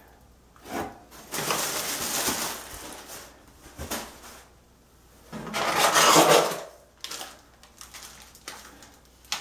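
Plastic packing material rustling and crinkling as a shipping box is unpacked by hand, with light knocks of cardboard. The rustling comes in two main bursts, about a second in and again around six seconds in.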